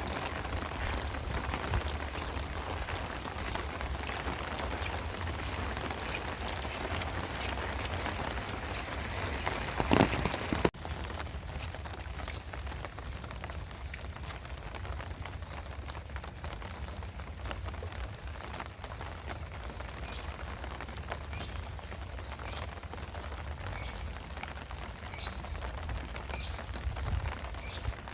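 Heavy rain falling steadily, with a brief loud rush about ten seconds in. Then the sound cuts abruptly to softer rain with separate drips ticking.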